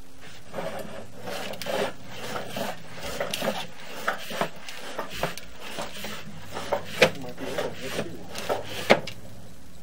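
Sewer inspection camera's push cable being fed quickly down a cast iron drain line, with irregular scraping and rubbing broken by short knocks, the sharpest about seven and nine seconds in.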